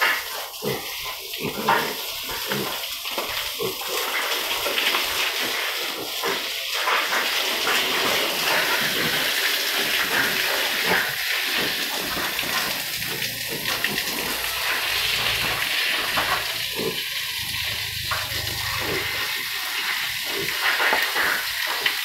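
Water running and splashing steadily onto a concrete floor.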